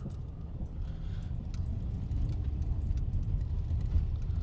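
Car heard from inside the cabin: a steady low rumble of engine and road, with scattered faint clicks and ticks.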